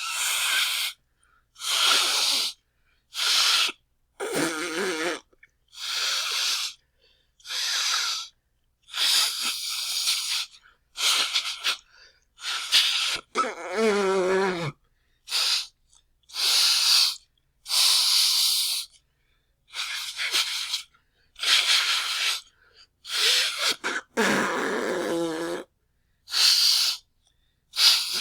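A person loudly blowing their nose, about eighteen separate short hissing blows with brief silences between them. A few of the blows end in a wavering, fluttering honk.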